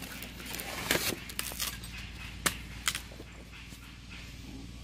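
A few sharp knocks of a machete chopping into a young green coconut.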